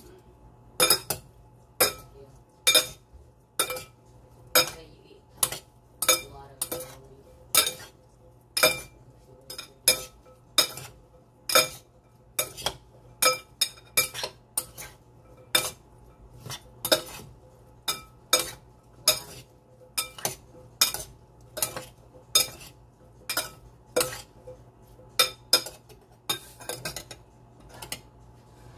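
Metal spoon and fork tossing a chopped radish salad in a glass bowl. They clink against the glass about once or twice a second, and each clink rings briefly.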